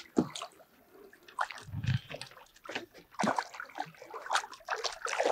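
Water splashing and sloshing in irregular bursts as a hooked carp thrashes at the surface close in.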